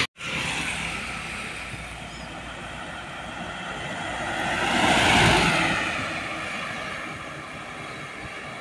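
A Mitsubishi Fuso Canter light diesel truck drives past close by on the road. The engine and tyre noise build up, are loudest about five seconds in, and then fade as the truck moves away.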